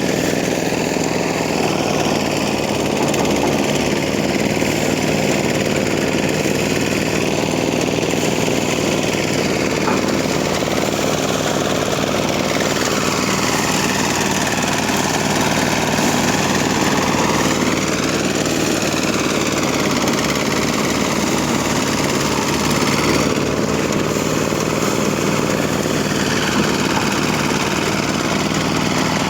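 An engine-driven machine running steadily under load, a continuous loud mechanical din with no breaks, typical of rice harvesting machinery.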